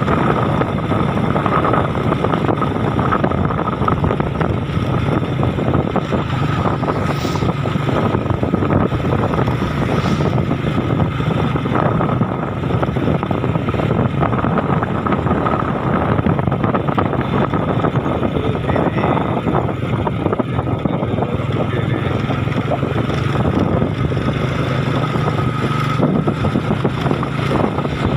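A vehicle engine running steadily, with a constant low hum and wind noise on the microphone.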